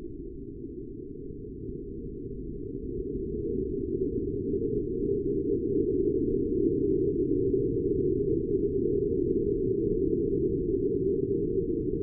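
Shaken bottle of Coca-Cola Zero fizzing and spraying out, heard in slowed-down audio: a low, muffled rushing that swells over the first few seconds and then holds steady.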